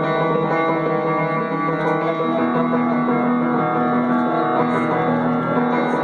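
Experimental instrumental music: a dense drone of many held tones, with a lower note that comes back in repeated held stretches from about two seconds in.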